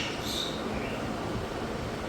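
Steady background hiss, with a short high-pitched chirp from a ringneck parakeet about half a second in and a fainter one just before the one-second mark.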